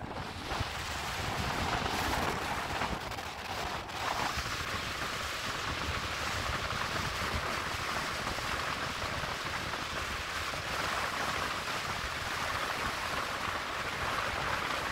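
Steady rushing noise of wind and road from a vehicle driving along a paved road.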